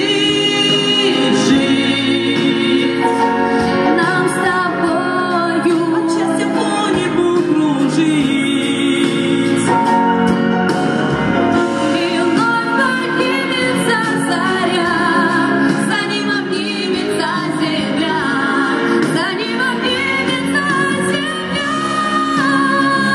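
Two women singing a song together into microphones, amplified through loudspeakers over a musical backing track, holding notes with vibrato.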